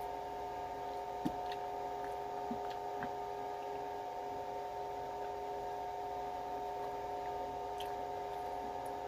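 Steady electrical hum holding a few constant tones, with a handful of faint short clicks, the clearest about a second in.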